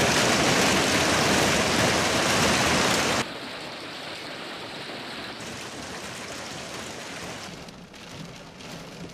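Heavy hail falling, a loud dense din for about three seconds, then cutting abruptly to a quieter steady rush of hail and rain.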